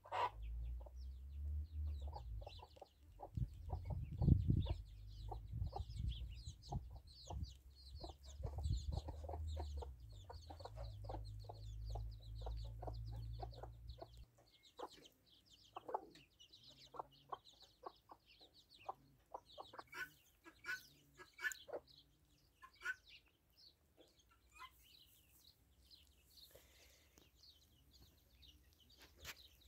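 A hen clucking in a run of short, irregular clucks, the calls a hen makes when she is about to lay. A low rumble sits under the clucks for about the first half and stops about halfway through.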